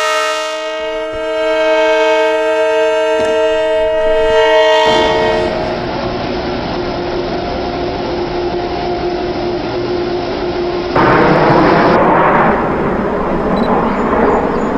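Metro-North train horn sounding one long, steady multi-note chord for about five seconds, then the train running past on the tracks, louder from about eleven seconds in.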